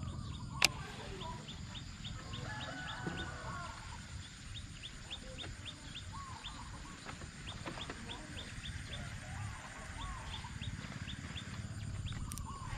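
Chickens clucking in the background, with short runs of rapid high ticking calls and a low outdoor rumble throughout. A single sharp click stands out about half a second in.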